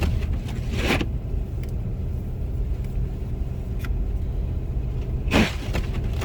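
Windshield wipers sweeping loudly across the glass twice, once about a second in and once near the end, over the steady low rumble of tyres and engine inside a car at about 28 mph on a snowy road.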